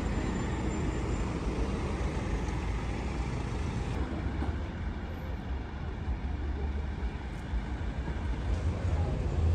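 Outdoor street noise: a steady wash of road traffic with a low rumble. The higher hiss drops away about four seconds in.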